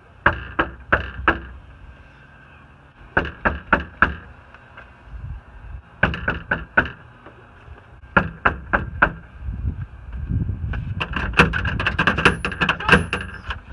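Knocking on a front door: four quick raps, repeated four times a couple of seconds apart. From about ten seconds in, a denser clatter of clicks and rattles as the door knob is worked.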